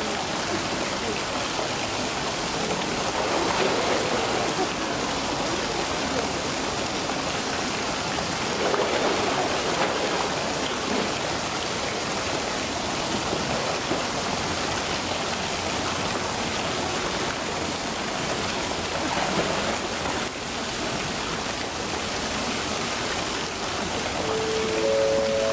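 Steady rush of running water, like a stream or waterfall. A short pitched sound comes near the end.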